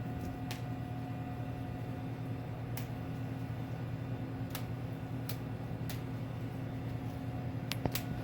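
A steady machine hum with a few sharp clicks scattered through it.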